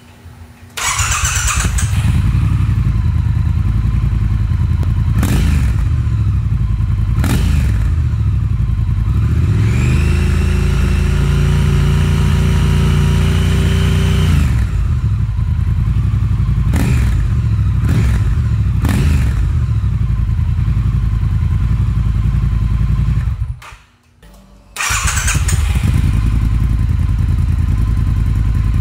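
Triumph Thruxton R's 1200 cc parallel-twin engine starting and idling through its stock silencers, blipped several times and held at raised revs for about five seconds, the pitch rising and then dropping back to idle. About three-quarters through the sound cuts off, and the same bike starts again and idles with a Motone X-pipe fitted.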